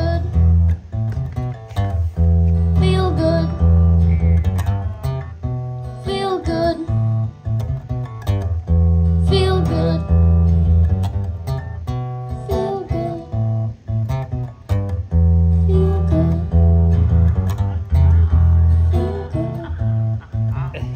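Acoustic guitar strummed steadily while a voice sings a melody over it, a song played live.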